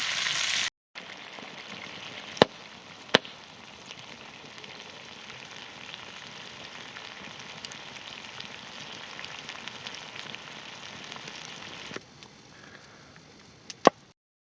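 Tomahawk steak sizzling over a campfire: a steady frying hiss, broken by a few sharp cracks.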